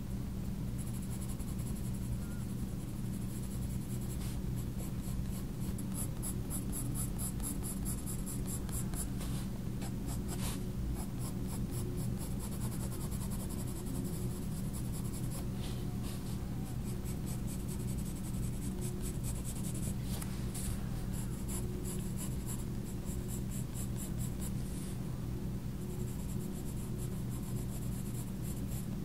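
Faber-Castell Polychromos coloured pencil scratching on sketchbook paper in runs of quick, short shading strokes, with brief pauses between runs. A steady low hum lies underneath.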